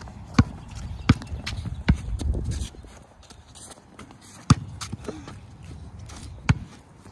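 A basketball bouncing on concrete as it is dribbled: three bounces about a second apart, then two more a couple of seconds apart, the loudest about four and a half seconds in.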